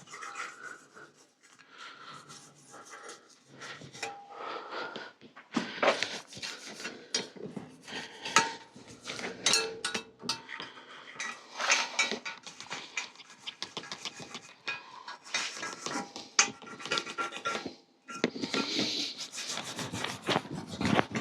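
A brush scrubbing dried-on mud off a steel bicycle frame, in irregular runs of rasping strokes with a short pause near the end.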